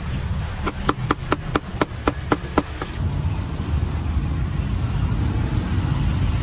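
Cleaver chopping roast meat on a chopping block, about four quick chops a second, stopping near three seconds in. A low steady rumble of traffic runs underneath and carries on after the chopping stops.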